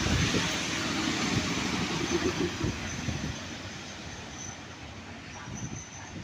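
A train running past, its rumble fading away steadily. Thin, high wheel squeal comes in faintly near the end.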